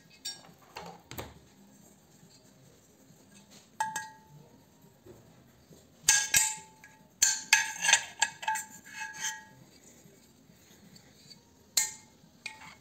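Metal clinks and knocks as the ironing device's metal steam boiler and its brass fittings are handled: a single ringing knock about four seconds in, a cluster of clattering taps from about six to nine seconds, and another knock near the end.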